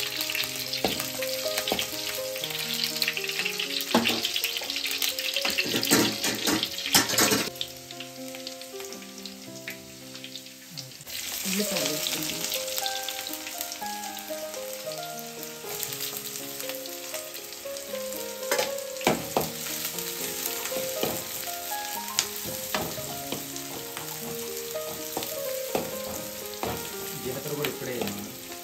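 Hot oil sizzling in an aluminium kadai as green chillies and then chopped onions fry, with a metal slotted spoon clicking and scraping against the pan. The sizzle drops for a few seconds and surges back about eleven seconds in, when the onions go in. Soft background music underneath.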